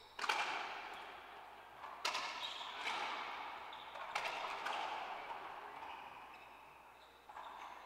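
Racquetball rally: a series of sharp smacks of the ball off racquet strings and off the court's walls and floor, each one ringing on in the enclosed court. There are about five, spaced roughly a second or two apart.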